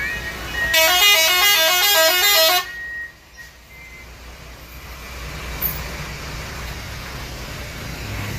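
A cargo box truck's musical multi-tone horn, telolet-style, plays a quick tune of stepped notes for about two seconds, starting just under a second in. Then the truck's diesel engine runs low and steady, growing louder toward the end as it drives past.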